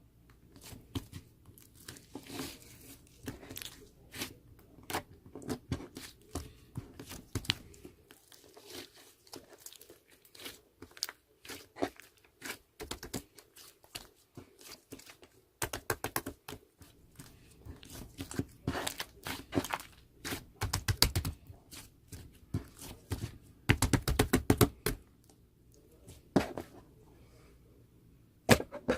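Close-up crinkling and tearing noises, with irregular clusters of sharp crackles and quieter gaps between them.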